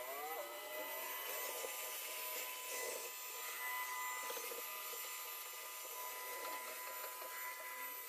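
iRobot Roomba s9 robot vacuum running on its lowest power setting, a steady motor whine and hum as it cleans across a hardwood floor.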